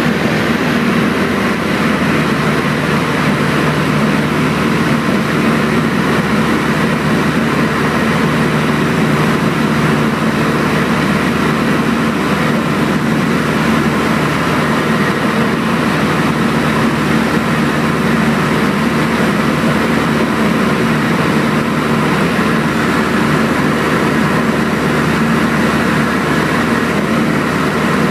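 Cabin noise of a high-wing light airplane in level flight: the piston engine and propeller drone steadily, a low hum of several steady tones under an even rushing noise, with no change in pitch or level.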